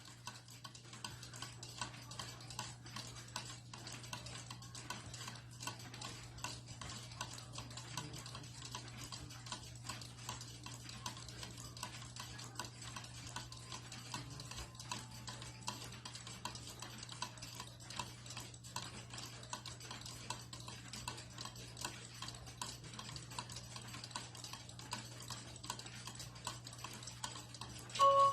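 Miniature weight-driven cuckoo clock ticking steadily and evenly. Its pivots are freshly oiled and it has a new weight and pendulum, and it is running properly.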